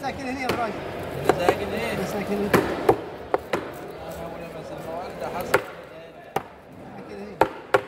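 Knife blade chopping down through red snapper onto a thick wooden chopping block as the fish is cut into steaks: about ten sharp, irregular knocks.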